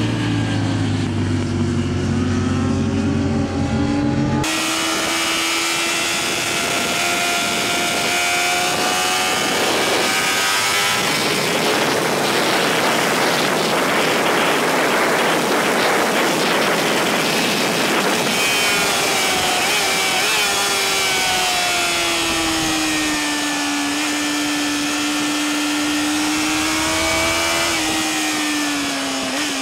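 Motorcycles heard from trackside at first, several engine pitches together. After a cut about four seconds in, a single sport motorcycle's engine is heard from onboard at speed, its pitch rising and falling slowly, with heavy wind rush on the microphone through the middle stretch.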